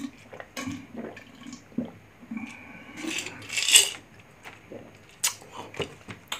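Gulping swallows of a lemon drink from a glass jar, then a loud breathy sound about three and a half seconds in. A sharp clink of the glass jar being set down follows about five seconds in.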